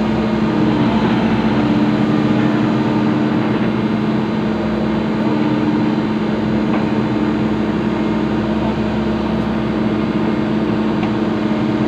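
Excavator's diesel engine running at a steady speed, a constant hum with no breaks.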